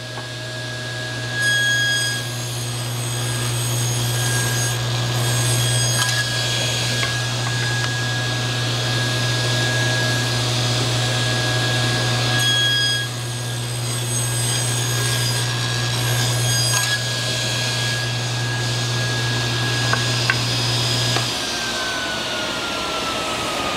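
SawStop table saw running with a 1/8-inch blade, making two rip passes about ten seconds apart as board edges are fed along the fence to cut spline grooves. Near the end the motor hum stops and the blade whine falls in pitch as it coasts down after switch-off.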